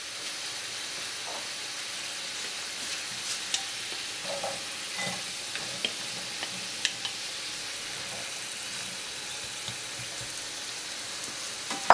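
Onion, cherry tomatoes and cooked beans sizzling in a frying pan as the beans are tipped in from a bowl and stirred with a wooden spatula. There is a steady hiss with a few light clicks and taps.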